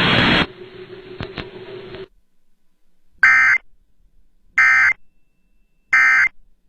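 Three identical short bursts of Emergency Alert System digital data tones, a little over a second apart: the End of Message signal that closes a NOAA Weather Radio alert. Before them, faint radio hiss with a low hum.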